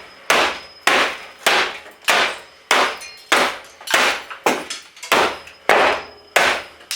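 Hammer blows on an old Dell desktop computer's metal case and parts, about eleven steady strikes a little over half a second apart. Each strike is a sharp knock with a short metallic ring, as a part is beaten loose from the metal chassis.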